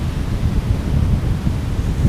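Wind buffeting the microphone: a loud, gusty low rumble with no bird call audible.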